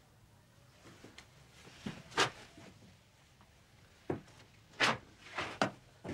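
Footsteps on a bare floor: a handful of separate, unevenly spaced steps, one about two seconds in and a quicker run of them from about four seconds in.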